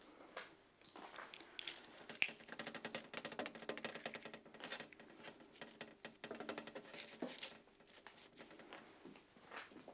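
Faint, quick, irregular patting and tapping of hands pressing olive bread dough balls flat on a parchment-lined metal baking tray.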